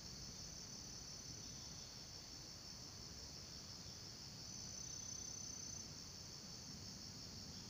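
Steady high-pitched chorus of insects, with a thin high whine standing out over it twice, the second, from about four and a half seconds in, the loudest.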